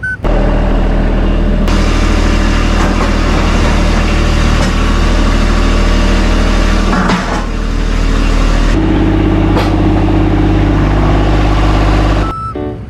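Engine running steadily at an even speed, its note changing about nine seconds in.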